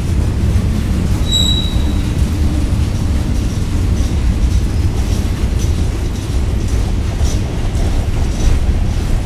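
A long CSX mixed freight train's cars rolling slowly past: a steady low rumble of steel wheels on rail with faint scattered clicks. A brief high squeal sounds about a second and a half in, typical of a wheel squealing against the rail.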